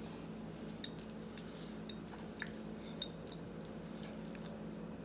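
Faint, scattered clinks and taps of a metal fork against white ceramic bowls while eating, about six in all, the two sharpest with a brief high ring about a second in and about three seconds in, over a steady low hum.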